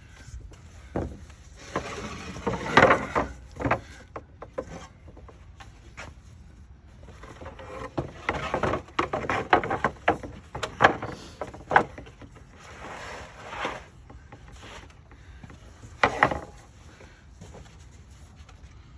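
Wooden boards and vinyl plank being handled and set in place: irregular knocks and clacks with sliding, rubbing noises between them, and no saw running.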